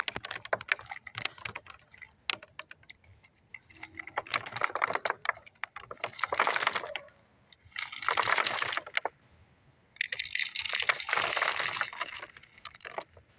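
Popped popcorn being poured: a few scattered light clicks, then three bursts of rapid clicking and rustling as handfuls pour down.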